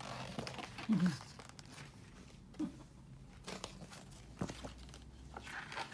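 Paper rustling and light knocks as the pages of a picture book are handled and turned, with a brief low voice sound about a second in.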